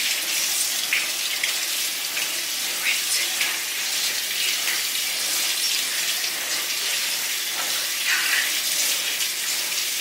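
Kitchen tap running steadily into a sink as raw chicken is rinsed under it, with a few small splashes and handling sounds.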